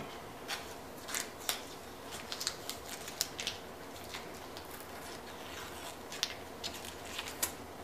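Faint scattered clicks and light crackles of masking tape being peeled off the wood and handled as the glue squeeze-out is cleaned up.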